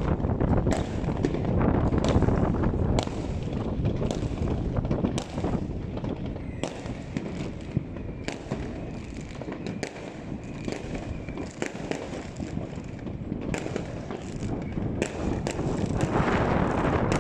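Fireworks going off in a dense barrage: a continuous rumble of bangs with many sharp cracks and pops several times a second, heaviest near the start and again near the end.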